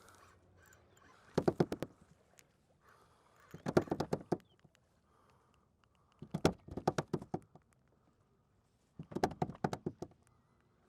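Fishing reel clicking in four short bursts of rapid clicks, about every two and a half seconds, while a large hooked fish is being fought.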